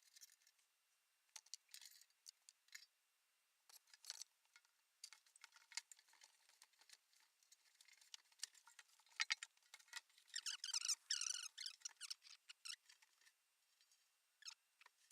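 Faint scattered clicks and light rattles from handling the old metal fuel tank, with a denser run of rattling about ten to twelve seconds in.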